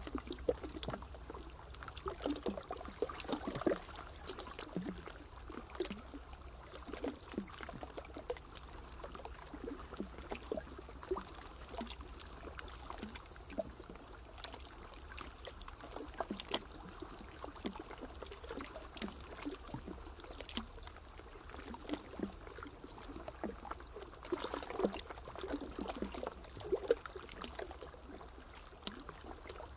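Water splashing and trickling: many small irregular splashes and drips over a steady wash.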